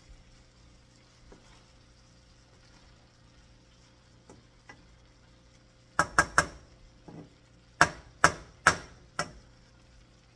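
A kitchen utensil knocking sharply against cookware: three quick knocks about six seconds in, then four more at about half-second intervals.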